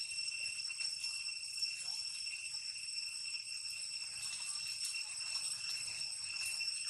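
Steady high-pitched insect chorus, a continuous buzz that does not change throughout.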